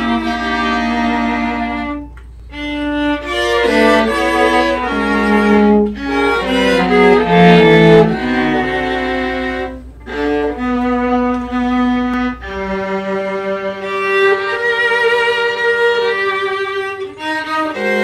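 String quartet of two violins, viola and cello playing a song arrangement in sustained bowed phrases, with brief breaks between phrases about two seconds in and again about ten seconds in.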